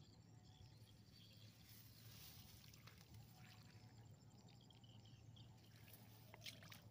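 Near silence: a faint steady low hum, with a few faint clicks near the end.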